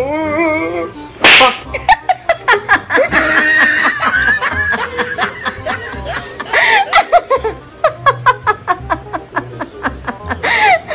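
Laughter over quirky comedy background music, with a sudden loud breathy burst about a second in.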